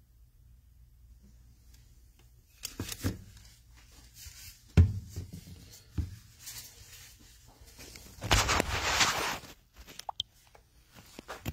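Handling noises: a couple of knocks about three seconds in, a sharp thump about five seconds in (the loudest sound), another knock a second later, then about a second of rustling, and a few light clicks near the end as the filming phone is picked up and moved.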